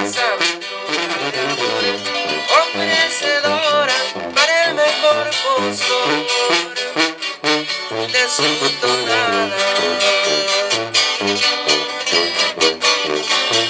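Regional Mexican band music: acoustic guitars strumming and picking over a steady tuba bass line, in the guitar-and-tuba sierreño style.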